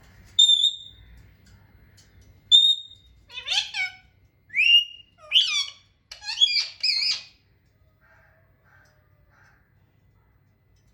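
A parrot calling: two short high whistled notes, then a quick run of squawky calls that slide up and down in pitch, stopping about seven seconds in.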